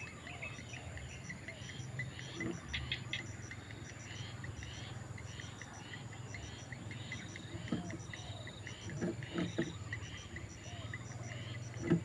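Steady chorus of insects and wild birds, with chirps and pulses repeating about once or twice a second. A few short, louder low sounds come from close by: about two and a half seconds in, around eight and nine seconds in, and just before the end.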